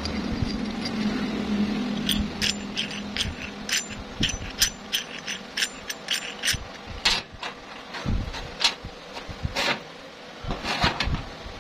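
A steel threaded rod is handled and turned in a hex nut on a small steel plate, giving many quick light metallic clicks and rattles. These are followed by several louder separate clinks and knocks as the steel parts meet a steel table top. A low steady hum runs under the first two seconds.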